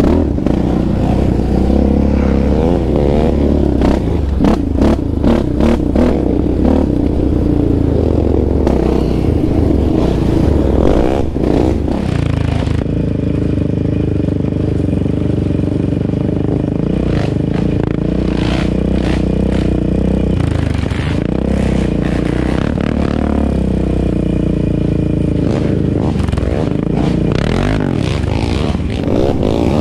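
Sport ATV engine, the single-cylinder Yamaha Raptor 700R, revving and running hard on a rough, muddy trail, with the quad clattering and scraping over the ground. About thirteen seconds in, the sound changes to a steadier, even engine drone.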